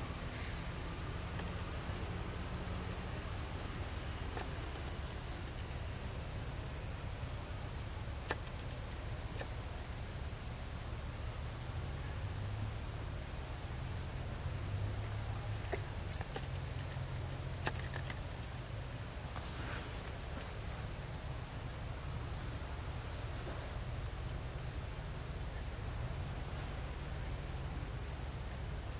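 Insects trilling in a steady chorus: a high buzz that pulses on and off, with a fainter, higher chirp repeating at an even beat about every second and a half. A low rumble runs underneath, with a few faint clicks.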